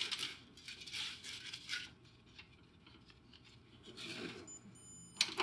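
Faint scraping and rubbing of gloved hands threading a brass nut on a copper refrigerant line onto a mini-split outdoor unit's service valve, with small clicks and a sharper click near the end.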